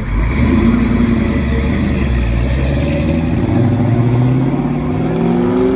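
A car engine running loudly, its engine speed climbing through the second half with a rising pitch.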